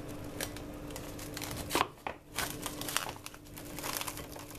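Plastic cling film being stretched over a bowl and pressed down around its rim, crinkling and crackling in irregular bursts.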